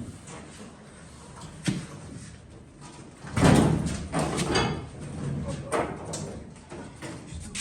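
Metal knocks and clanks of truck parts being worked loose and handled. The loudest is a clattering stretch about three and a half seconds in, with a brief metallic ring, and single knocks come before and after it.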